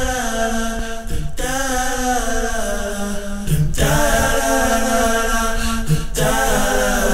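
Background music: unaccompanied voices singing long held notes in a chant-like style, in phrases of about two and a half seconds with brief breaks between them.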